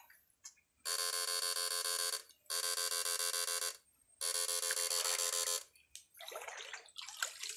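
Three steady electronic buzzes, each about a second and a half long, with short dead-silent gaps between them, followed by faint water sloshing near the end.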